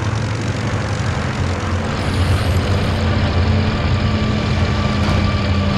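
Steady drone of Avro Lancaster bombers' piston engines, growing a little louder about two seconds in, with a higher steady tone joining.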